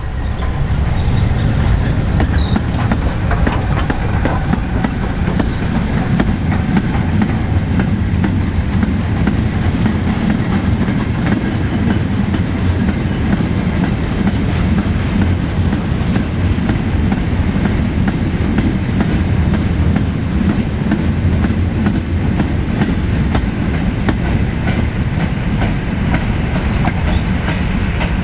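A heritage train running on the line: a steady, loud rumble with the wheels clicking over rail joints, building over the first second and then holding.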